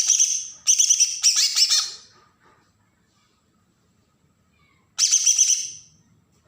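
Green leafbird (cucak ijo) giving harsh, rapid chattering 'besetan' calls: three quick bursts in the first two seconds, then another about five seconds in.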